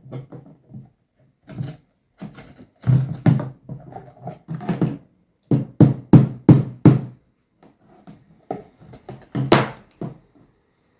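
Irregular series of knocks and thuds as parts are handled and knocked into place during hand assembly, some in quick clusters, the loudest near the end.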